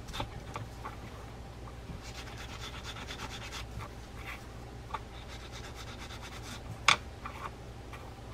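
Steel wool scrubbed quickly back and forth on a small brass part of a vintage fishing reel, buffing off grime, in two bouts of rapid scratchy strokes. A single sharp tap about seven seconds in.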